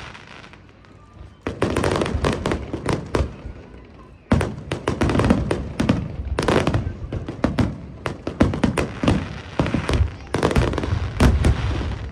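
Aerial fireworks bursting in rapid volleys of sharp cracks and deep booms. Four waves come a second and a half in, then at about four, six and a half and ten seconds, each dying away before the next.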